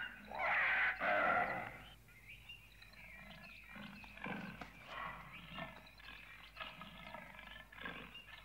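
A cartoon badger snarling loudly for about the first two seconds, then softer, broken grunting noises.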